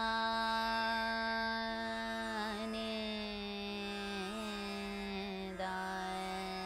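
A woman sings slow, long-held notes of Raag Bageshri in the lower octave over a plucked tanpura drone. Her voice slides down a step about two and a half seconds in, with small ornamented turns around four and five and a half seconds, while the tanpura strings are re-plucked about every two seconds.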